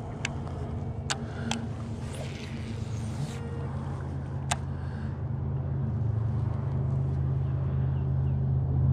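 A motorboat engine running steadily and getting louder over the second half as it comes closer. A few sharp clicks in the first few seconds.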